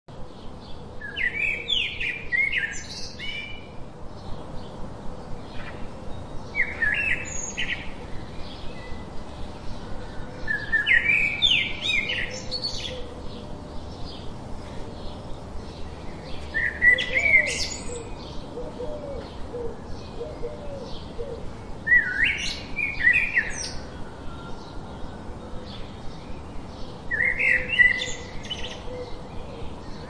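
A songbird sings short, warbling phrases about every five seconds, each lasting a second or two. A faint ticking of quick notes about twice a second runs between them.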